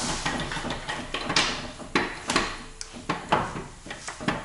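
Irregular sharp metal knocks, clacks and scraping as a manual gearbox is worked loose from the engine during its removal.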